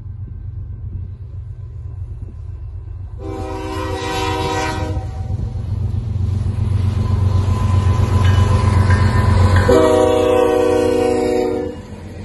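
BNSF coal train's lead diesel locomotive sounding its air horn in two long blasts, the first about three seconds in and the second about ten seconds in. Between and under them is the rumble of the locomotives' engines, growing louder as they come alongside.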